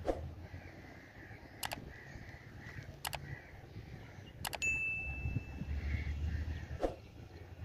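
Mouse clicks from an animated like-subscribe-bell overlay, three clicks about a second and a half apart, the last followed by a high bell ding that rings on for about two seconds.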